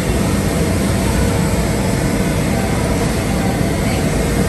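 Coffee roasting machinery and its ductwork running with a steady, even noise that is heaviest in the low end.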